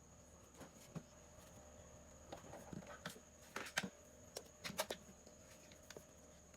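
Irregular light clicks and taps from small objects being handled, coming in a loose cluster through the middle, over a faint steady hum.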